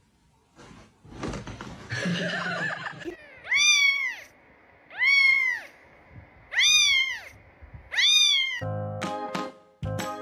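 A cat meowing four times, evenly spaced, each call rising then falling in pitch. Music comes in near the end.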